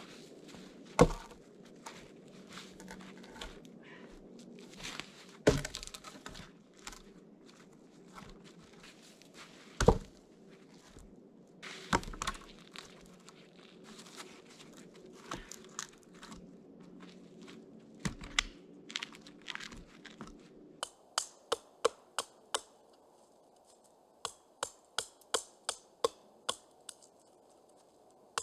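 Logs dropped one at a time onto snowy ground: a few heavy thuds among crunching footsteps in snow. About three-quarters of the way through it changes to a small hatchet chopping a stick, with quick, sharp strokes about three a second in two runs.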